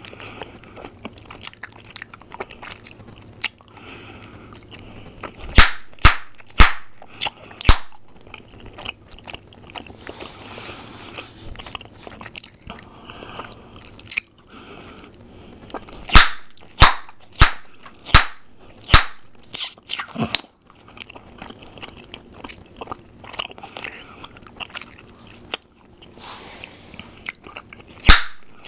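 Close-up mouth sounds of bubble gum being chewed, soft and wet, broken by runs of loud, sharp gum pops. There are about six pops a few seconds in and about eight more in quick succession near the middle, and another run starts near the end.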